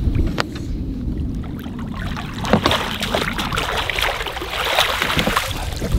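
Hooked walleye thrashing at the water's surface beside a landing net: sharp splashing starts about two and a half seconds in and keeps going almost to the end. A steady low rumble runs underneath.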